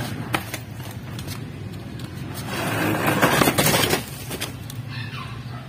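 Wooden knocks as an old wooden crate is handled, then a loud scraping rush lasting about a second and a half as the crate is dragged along the ground, over a steady low hum.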